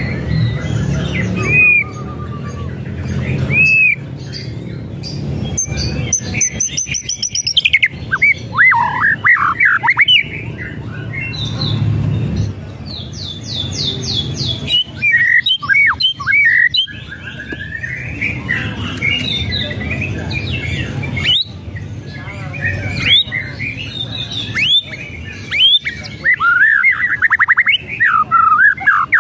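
White-rumped shama singing a varied song of loud whistles and rising and falling slurs, broken up by fast rattling trills (the 'kretekan').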